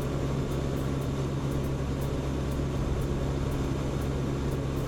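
Steady drone of a propeller aircraft's engines heard inside the cabin: a constant low hum under an even rushing noise.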